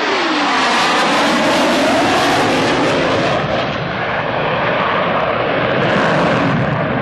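Loud jet noise of a McDonnell Douglas F-15 Eagle on a low flyby: a whine falling sharply in pitch as it passes at the very start, then a steady, heavy rushing noise from its twin jet engines.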